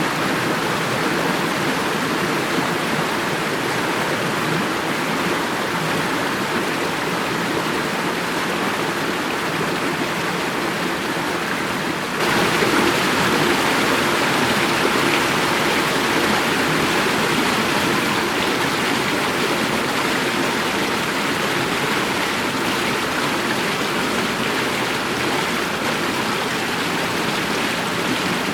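Flowing water, a steady even noise that gets a little louder and brighter about twelve seconds in.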